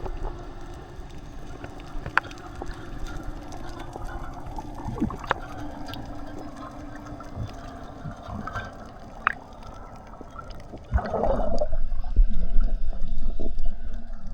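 Underwater sound: scattered sharp clicks over a low wash, with a faint steady hum through the middle. About eleven seconds in, a louder gurgling rush of water comes in.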